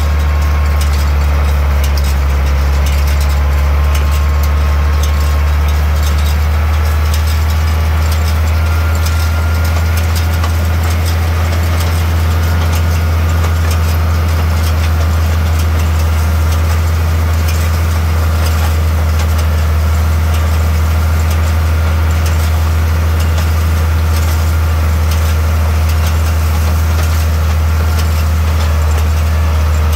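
Tractor engine running steadily at a constant speed with a strong low hum while it pulls a side-delivery hay rake through cut hay, with faint light rattling from the rake.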